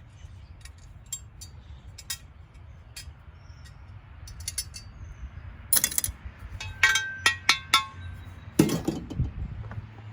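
Metal parts and tools clinking and tapping during the dismantling of a tankless water heater. Scattered light ticks give way to a cluster of sharp, briefly ringing metal clinks in the second half.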